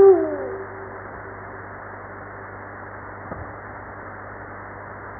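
Eurasian eagle-owl giving one deep hoot at the start, gliding down and then held for about a second and a half, followed by steady recording hiss.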